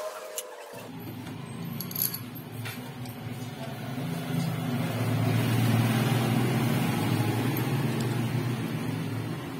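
A motor vehicle's engine running past, a low hum that swells to a peak around the middle and then eases off. A few light metallic clinks of motorcycle clutch parts being handled come in the first two seconds.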